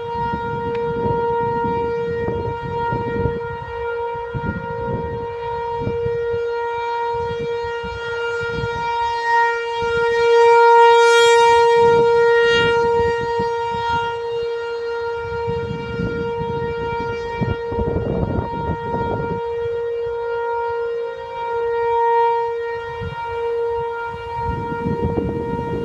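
ASC T-128 rotating outdoor warning siren sounding a steady alert tone, one unwavering pitch with many overtones. It grows louder near the middle and again briefly later as the rotating horn sweeps toward the listener.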